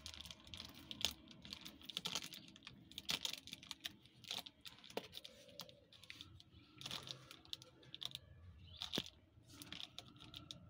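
A cat's claws scratching and picking at a cardboard box: a run of irregular scratches, taps and small crinkles.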